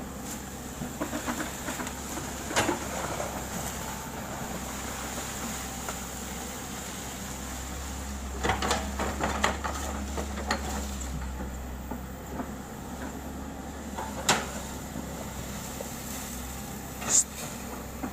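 Excavator diesel engine running steadily, with occasional sharp metallic clanks a few seconds apart, including a quick cluster about halfway through.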